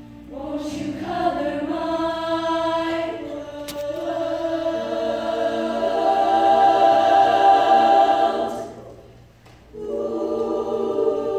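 Women's choir singing unaccompanied, holding sustained chords that swell to their loudest before a clean cutoff about three-quarters of the way through; after a short pause a new chord comes in.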